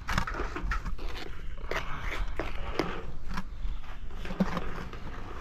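Wet concrete mix being scooped by hand from a plastic bucket and worked with a small trowel, making irregular scraping, scooping and clicking noises as a concrete patch is packed in.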